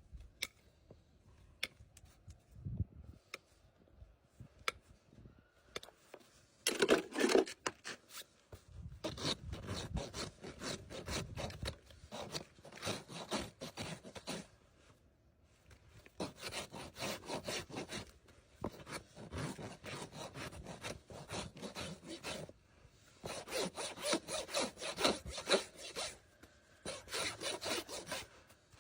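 Farrier's rasp filing a horse's hoof in rapid, repeated scraping strokes, in several runs of a few seconds each with short pauses between. The first few seconds hold only a few scattered clicks.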